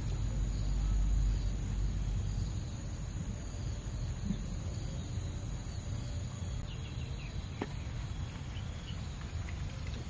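Outdoor ambience: a steady high insect drone, with a low rumble that fades in the first couple of seconds and faint bird chirps in the second half.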